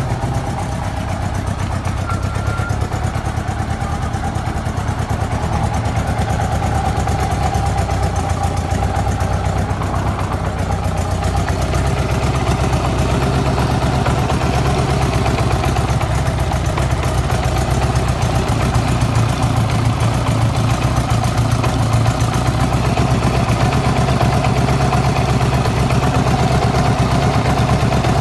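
Honda Gold Wing GL1200's flat-four engine idling steadily with a knocking noise.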